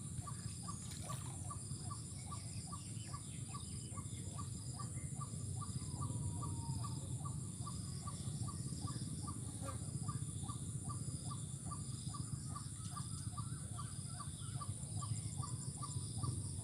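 Outdoor ambience: a short call note repeated evenly about two and a half times a second, over a steady high insect buzz and a low rumble.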